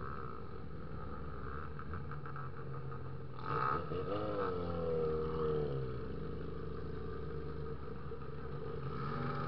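Honda XR250 Tornado motorcycle's single-cylinder four-stroke engine running while riding. Its note gets louder and its pitch rises and falls from about a third of the way in to past the middle, as the throttle changes.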